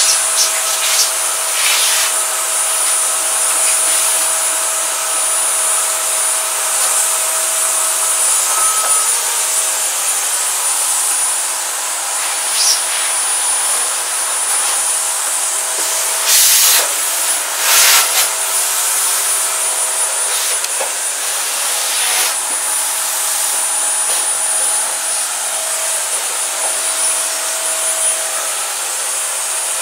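Steady rushing noise of an electric household appliance's motor and airflow, with a thin high whine over it, running without a break. Two brief knocks come a little past the middle.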